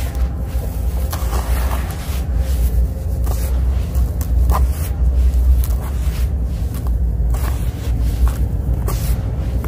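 Hands crushing and scrunching dry, grainy sand-cement mixed with concrete grit in a plastic tub: irregular gritty crunches and scrapes. A steady low rumble runs underneath and is the loudest part.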